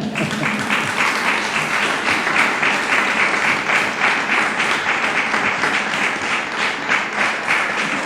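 Audience applauding steadily: a dense, sustained clapping of many hands.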